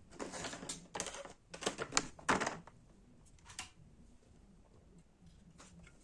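Hard clicking and clattering of small parts and tools being handled on a work surface during a laptop teardown: a busy burst of about two and a half seconds with its loudest clacks near the end, then a couple of faint single clicks.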